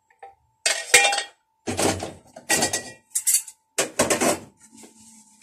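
Metal cooking pot scraped and knocked with a spoon as stewed kale is served out of it. There are about five short clattering scrapes and clinks, the loudest a sharp knock about a second in.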